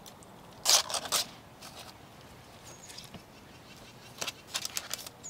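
Casserole being assembled: a metal spoon scrapes creamy filling out of a plastic bowl into a parchment-lined cast iron Dutch oven, with a few short loud scrapes about a second in. Near the end comes softer crinkling of parchment paper as corn tortillas are pressed in. A bird chirps faintly twice.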